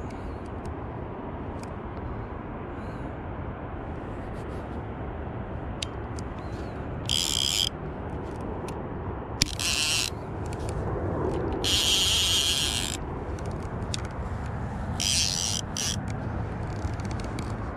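Steady outdoor background rumble, with four short, high hissing bursts at intervals and a few faint clicks.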